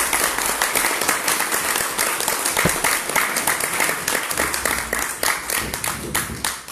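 Audience clapping at the end of a candidate's speech, a dense round of applause that thins out and dies away near the end.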